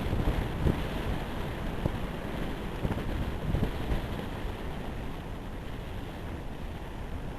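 Wind buffeting the microphone: a steady rumbling rush that swells and dips in gusts.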